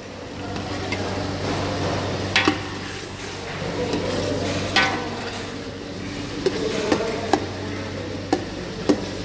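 Chicken pieces sizzling in hot oil in a metal pot while being stirred, browning for a biryani. A spoon knocks against the pot now and then, several times in the second half.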